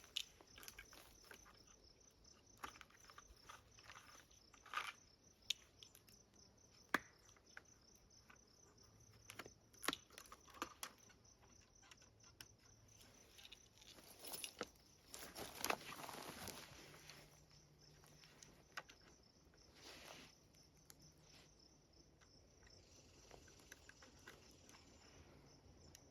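Faint outdoor quiet, broken by scattered sharp clicks and brief rustles of hands handling a trail camera's case and SD card. Crickets are faint in the background.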